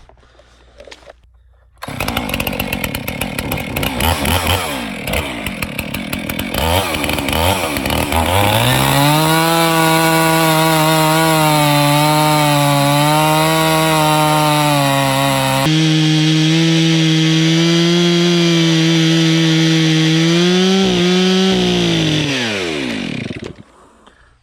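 Two-stroke chainsaw throttled up about two seconds in and cutting a flat slab off the top of a log with the backhand method, its note uneven at first, then running high and steady. Near the end the throttle is released and the engine falls away.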